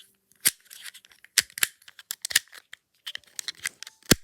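A handheld fidget ball being squeezed and played with, giving irregular sharp popping clicks, about a dozen of them, the last near the end the loudest. So loud.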